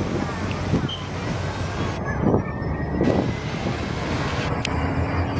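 Diesel engine of a Hino tractor unit pulling a loaded lowboy trailer, running steadily as the truck rolls slowly past, over a background of traffic noise.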